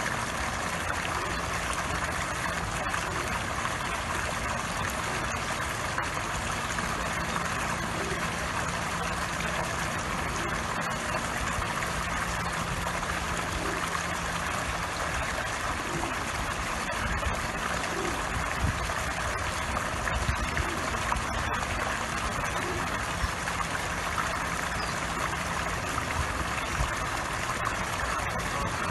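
Water jet from a squirrel-statue pond fountain spouting into the pond, a steady rushing splash, with a low steady hum underneath.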